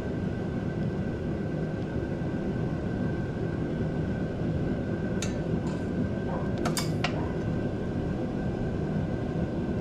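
Steady low mechanical noise with a thin constant whine. A few sharp clicks come about five seconds in, and a short cluster of metallic clinks follows around seven seconds in, from hands working with tools or parts.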